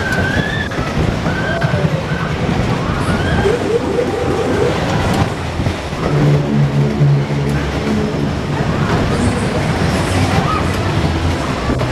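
A funfair Disco Train's cars running fast around the track, a loud steady rumble heard from on board, mixed with ride music and riders' voices.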